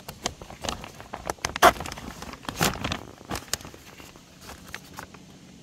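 Clear plastic sheeting crinkling and rustling as it is handled, with scattered clicks and taps; the loudest, busiest stretch is in the first three and a half seconds, then it thins to a few faint ticks.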